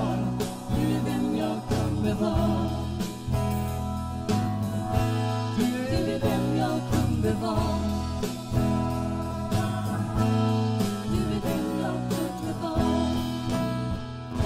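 Live band playing a song: women singing over acoustic guitar, electric guitar and a drum kit keeping a steady beat.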